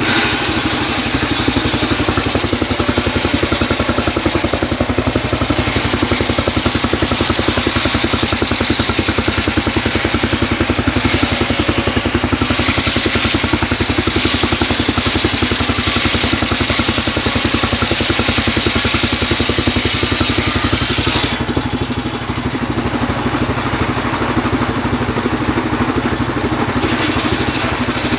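An engine-driven homemade circular saw bench ripping a trembesi (rain tree) log lengthwise. The engine runs steadily under load beneath the hiss of the blade cutting through the wood. About 21 seconds in the cutting hiss stops while the blade spins free, and a new cut starts near the end.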